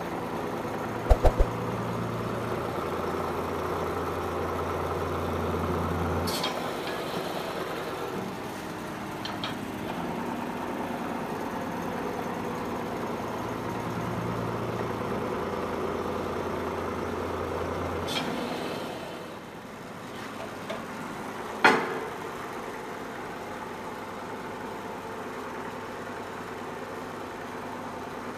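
Hydraulic press's electric motor and pump running with a steady hum; a deeper hum comes in for about the first six seconds and again from about 14 to 18 seconds in. A few sharp clicks or knocks sound, the loudest about 22 seconds in.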